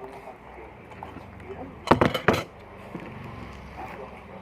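A few quick clinks of a fork against a bowl, bunched together about two seconds in, over a low room hum.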